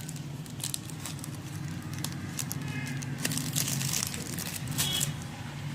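Paper and plastic firecracker packaging crinkling and rustling as it is handled, with scattered light clicks over a steady low background hum.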